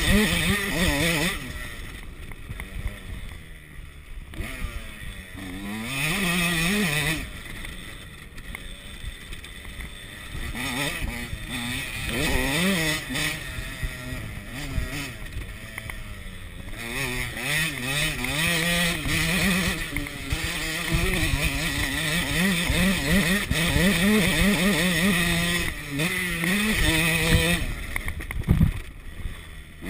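KTM 85 SX two-stroke dirt bike engine ridden hard, its pitch climbing as the throttle is held open, then dropping off as it is shut, over and over, with several short lulls before it revs up again.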